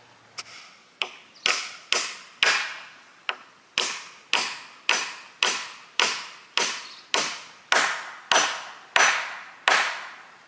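Chopping wood with a blade (axe or machete): about seventeen blows at roughly two a second, each with a short ringing tail, the first couple lighter than the rest.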